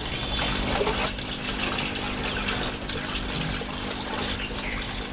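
Water gushing and splashing steadily as it churns below metal machinery, with a low steady machine hum underneath.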